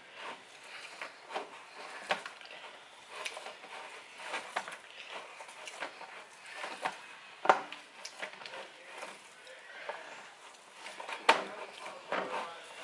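Hands kneading oiled bread dough in a plastic bowl: irregular soft squishing and patting, with a few sharp knocks, the loudest about seven and a half seconds in and again about eleven seconds in.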